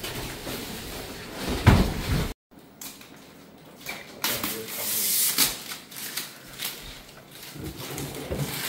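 Irregular knocks, clunks and scraping of objects being handled. The loudest clunks come just before a sudden cut to silence about two and a half seconds in, and more scattered knocks follow.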